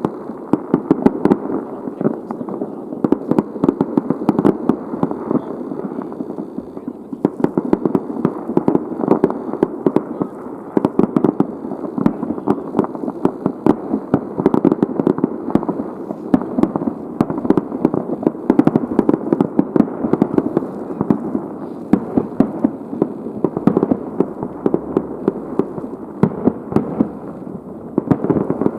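Fireworks display: a dense, unbroken barrage of aerial shell bursts, many sharp bangs a second over a continuous rumbling wash, easing slightly for a moment about six seconds in.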